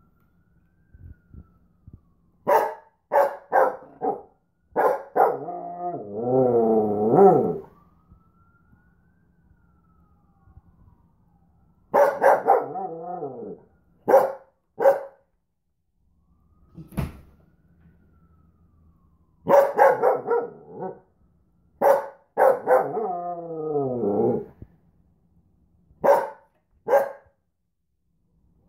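A corgi barking and baroo-ing: bouts of short sharp barks that run into long, wavering, howl-like baroos. An ambulance siren wails faintly in the pauses.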